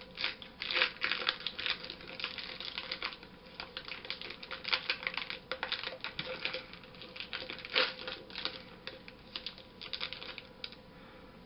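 A crinkly plastic cookie wrapper crackling as it is handled and torn open, in quick irregular crackles that stop near the end.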